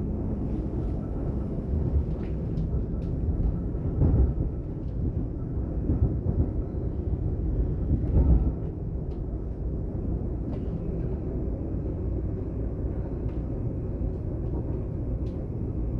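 Running noise of a DB Class 422 electric multiple unit heard from inside the train: a steady low rumble of wheels on track with scattered small clicks and two louder bumps about four and eight seconds in.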